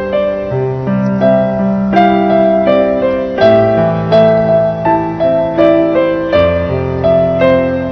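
Background piano music: a gentle melody of single notes, about two a second, over held low notes.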